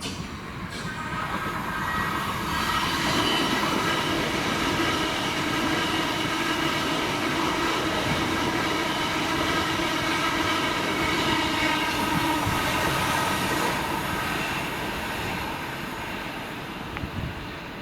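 Train passing through the station: its running noise builds over the first couple of seconds, holds steady with a whine of several tones on top, then fades near the end.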